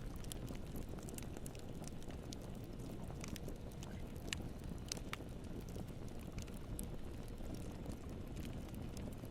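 Campfire burning: a steady low rumble of flames with scattered sharp crackles and pops of burning wood, a couple of louder pops about four and five seconds in.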